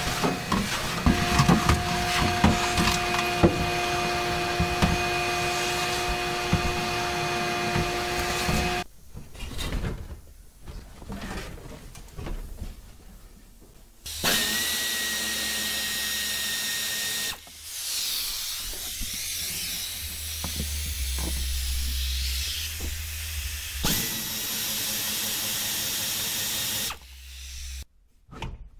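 Power tool, likely a drill, running in several long steady stretches that stop abruptly, with quieter clicking and clattering of hand work on metal between them.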